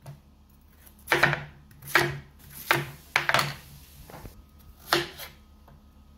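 Chef's knife chopping a peeled potato into chunks on a wooden cutting board: about seven separate knocks of the blade on the board, unevenly spaced, with short gaps between.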